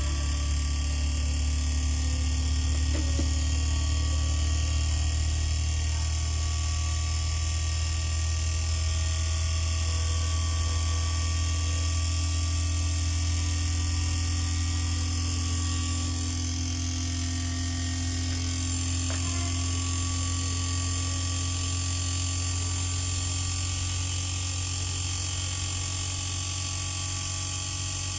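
Panasonic 2-ton inverter air conditioner outdoor unit running on test, its inverter compressor and fan giving a steady low hum with whining tones that drift slowly in pitch. The unit has a speed-stage ('gear') fault: it fails to step up from low to high and cuts out.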